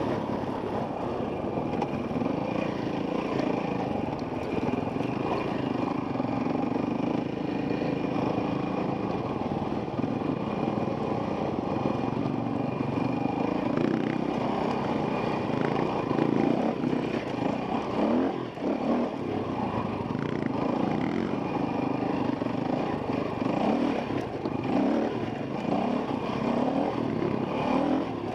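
Dirt bike engine under way from the rider's own helmet camera, its revs rising and falling with the throttle. In the second half it is joined by knocks and rattles as the bike works over rocky ledges.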